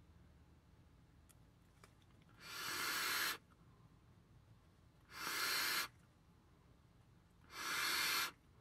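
A person blowing out vapor from an e-cigarette in three long exhales, each about a second long and spaced roughly two and a half seconds apart.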